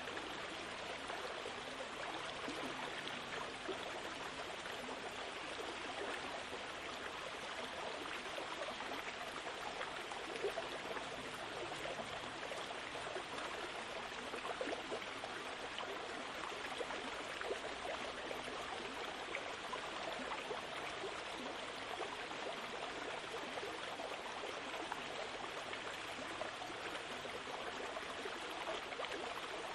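A steady, even rushing noise that holds the same level throughout, with a few faint brief ticks.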